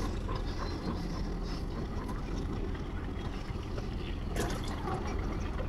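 Steady low rumble of background noise on the river, with faint scattered ticks and one short, sharp rustle about four seconds in.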